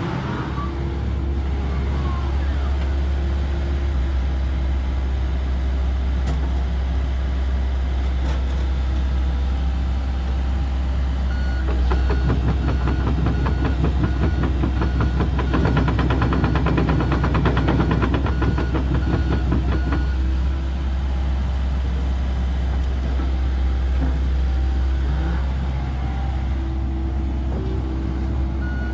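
2012 Komatsu PC78US-8 excavator's diesel engine running steadily while the machine swings and works its boom and arm. From about twelve to twenty seconds in, and again at the very end, the machine's warning alarm beeps in an even, repeated pattern.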